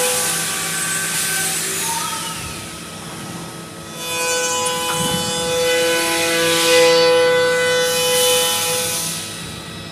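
CNC wood router machining: the bit rasps through wood over a steady multi-tone whine from the spindle and drive motors, which shifts in pitch about four seconds in.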